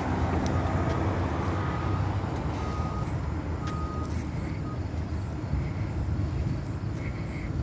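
Transit bus in motion, heard from on board: a steady low rumble of engine and road noise, with a faint high whine that comes and goes briefly.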